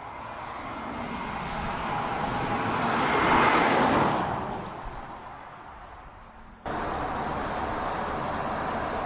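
A BMW 750Li sedan driving past: a rush of tyre and road noise that swells to a peak about three and a half seconds in and then fades away. About two seconds later the sound cuts abruptly to a steady rush of road noise from the car cruising.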